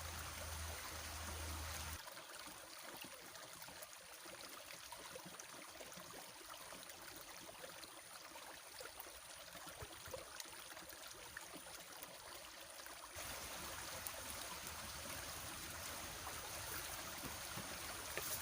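Small stream trickling and flowing: a faint, steady water sound whose background changes abruptly twice.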